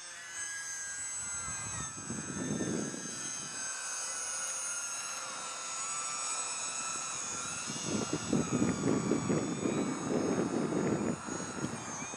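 Several small electric RC planes (E-flite UMX Turbo Timbers) flying at once: the high whines of their electric motors and propellers overlap, each rising and falling slowly in pitch as the throttles change. Low rumbling comes in twice, briefly about two seconds in and for a longer spell from about eight to eleven seconds.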